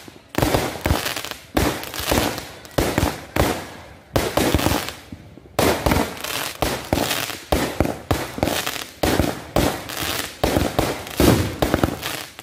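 Aerial fireworks bursting overhead: a rapid, irregular run of sharp bangs, easing briefly about four seconds in before picking up again.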